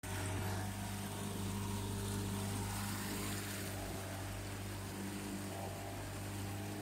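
A catamaran's motor running steadily under way, an even low drone over a steady rushing noise.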